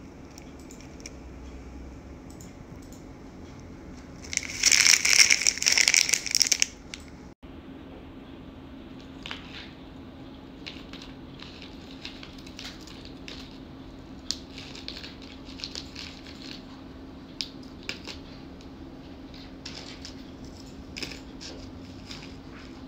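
Plastic snack packet crinkling loudly for about two seconds as it is handled, then light crinkles and small taps as fried fish muruku pieces are set out on the packet.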